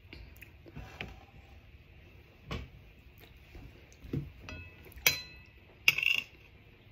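A metal spoon clinking and scraping on a ceramic plate while slices of green mango are handled, with scattered soft clicks and knocks. A short ringing clink comes about five seconds in, followed by the sharpest strikes about a second later.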